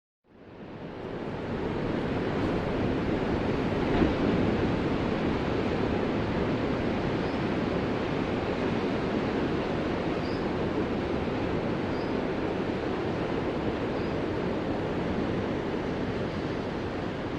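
Ocean surf: a steady wash of breaking waves that fades in from silence over the first couple of seconds, with a brief louder splash about four seconds in.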